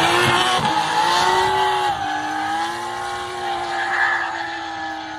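Drift car's engine held at high revs while it slides with its rear tyres spinning and smoking. The note is steady, drops slightly about two seconds in, then holds as it slowly fades.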